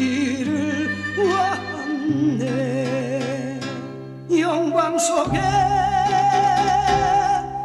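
A Korean Christmas song: a singer holds long notes with a wavering vibrato over an accompaniment of held bass notes. It grows louder about four seconds in and ends on a long held high note.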